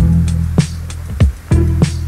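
Music with a steady drum beat and a deep bass line.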